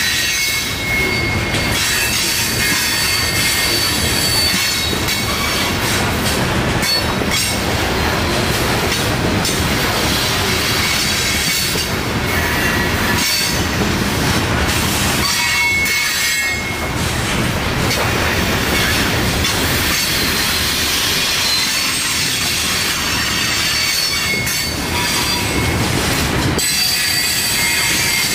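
Loaded coal hopper cars rolling past on the rails: a steady rumble and rattle of wheels, with high-pitched wheel squeals that come and go several times.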